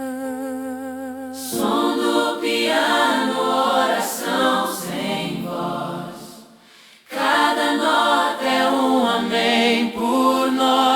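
Gospel music: a choir singing long held notes with vibrato. It dips briefly about six seconds in, then the voices return.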